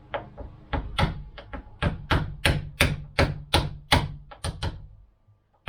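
Hammer tapping on a door, a steady run of sharp strikes about three a second, while fitting lockset hardware. The strikes stop shortly before the end.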